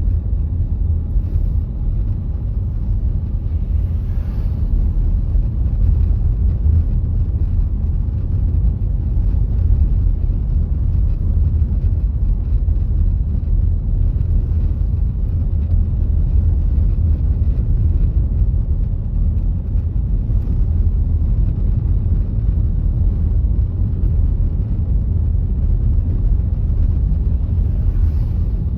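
A car being driven at a steady pace, giving a continuous low rumble of road and engine noise.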